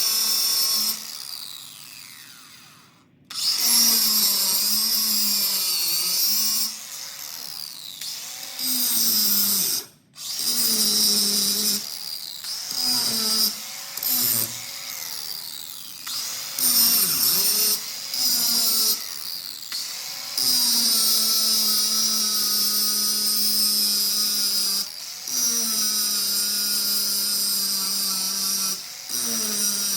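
Handheld electric power tool running in repeated bursts of a few seconds, its motor whine dipping and recovering in pitch as it is pressed into the work, with the longest run about two-thirds of the way through.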